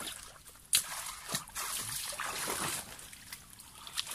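Shallow water trickling and sloshing in wet mangrove mud, with a sharp click a little under a second in and a longer spell of splashing around two seconds in.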